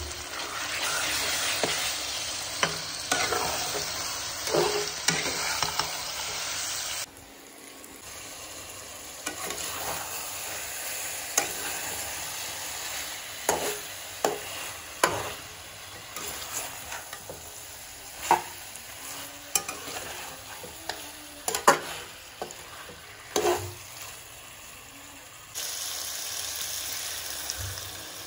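Chicken pieces frying in masala in a metal kadhai, sizzling while a flat metal spatula stirs them, scraping and clinking against the pan. The sizzle is loudest for the first several seconds and drops suddenly to a softer level about seven seconds in.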